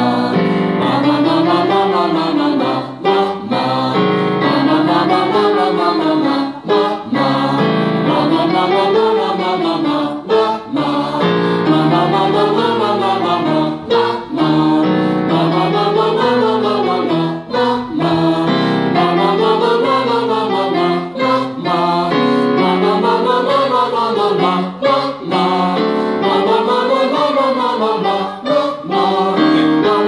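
Small choir singing a vocal warm-up exercise to digital piano accompaniment. Each short scale phrase climbs and falls back, lasts about three and a half seconds with a quick breath between, and is repeated about eight times.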